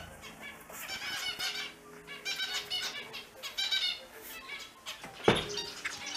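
Small finches chirping and squeaking in quick runs of short, high calls, with a single sharp thump about five seconds in.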